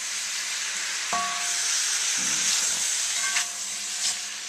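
Chicken and vegetable stir-fry sizzling steadily in a wok on high heat while it is stirred, with a ringing clink of the utensil against the wok about a second in and a few light clicks near the end.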